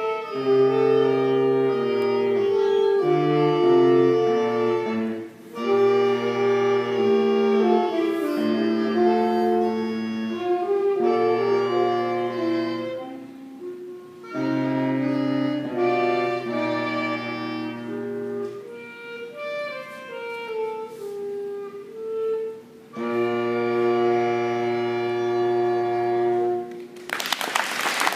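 Middle school concert band of woodwinds and brass playing a slow piece in held chords, closing on a long sustained final chord. Applause breaks out right after the chord cuts off, near the end.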